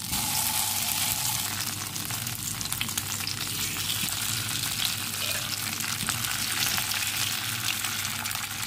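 Potato and vegetable shashlik skewers frying in a little hot oil in a pan: a steady sizzle with many small crackles.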